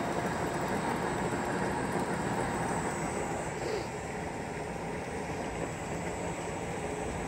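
Electric motor of a solar-powered tube well running steadily, driving the pump through a belt. A little quieter about four seconds in.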